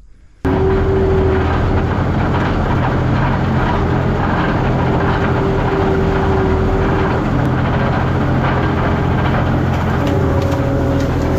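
Engine running steadily at a constant speed, with a faint steady whine above it. It comes in suddenly about half a second in.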